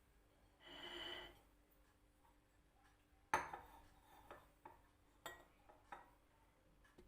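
Tableware clinking: one sharp, ringing clink a little over three seconds in, then several lighter taps and clicks of dishes and cutlery. A brief, softer ringing sound comes about a second in.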